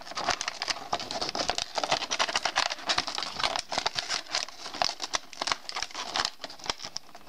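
Toy packaging being handled and opened by hand, an irregular run of crinkling, rustling and small crackles.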